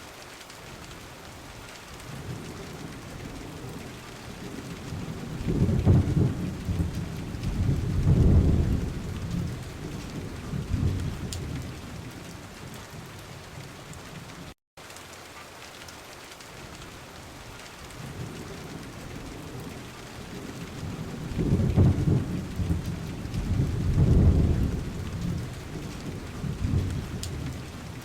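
Steady rain with rolls of thunder: two strong rumbles about two seconds apart and a weaker third. After a brief dropout about halfway through, the same rain-and-thunder recording plays again.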